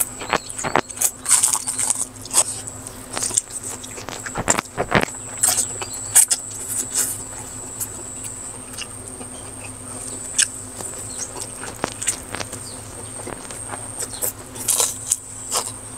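Close-miked eating sounds: a person slurping instant noodles and chewing, with many small wet mouth clicks and smacks. The clicks are dense in the first few seconds, sparser in the middle, and pick up again near the end with more noodle slurping.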